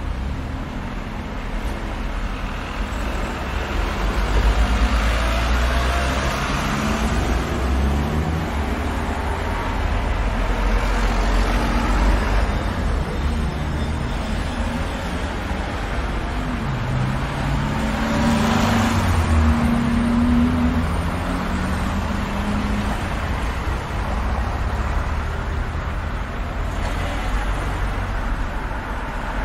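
City street traffic: a steady rumble of engines and tyres, with vehicles passing close several times. The loudest pass, about two-thirds of the way through, carries a low engine hum.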